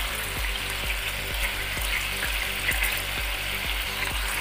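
Whole chicken sizzling as it fries on high flame in hot oil and its own cooking juices in a pan, a steady crackling hiss.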